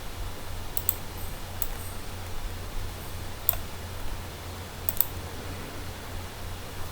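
A handful of sharp computer mouse and keyboard clicks, some in quick pairs, spaced irregularly over a steady low hum.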